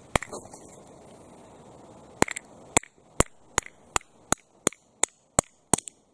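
Hammer blows on an old carburetor accelerator pump diaphragm lying on concrete. One strike comes just after the start, then a pause of about two seconds, then a steady run of blows about three a second. The pump's rubber is hard as a rock, and the beating does not squish it.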